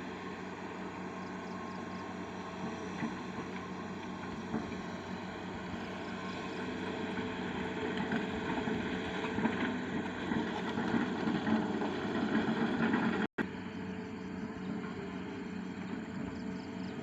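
Excavator engine running steadily as the machine crawls slowly on its tracks, with a constant low hum. It grows louder for several seconds, cuts out for an instant, then carries on a little quieter.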